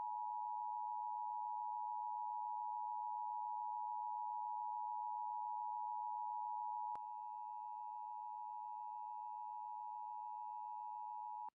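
Emergency alert attention tone: a steady electronic tone near 1 kHz held without a break. It drops slightly in level about seven seconds in and cuts off just before the end.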